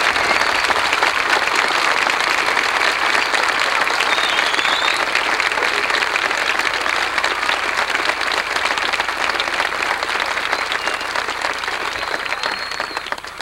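Crowd applauding, a dense steady clapping that eases off slightly near the end.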